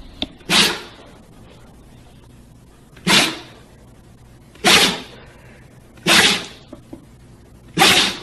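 A husky sneezing hard five times in a row, each sneeze a sudden sharp burst, one and a half to two and a half seconds apart.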